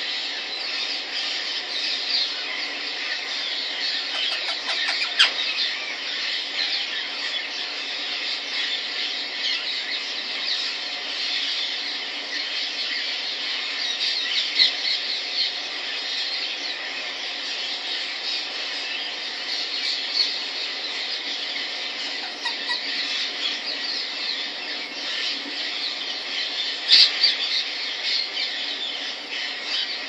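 Indian ringneck parrot giving a steady stream of high-pitched squeaky chatter, with a few louder squeals about five seconds in and near the end.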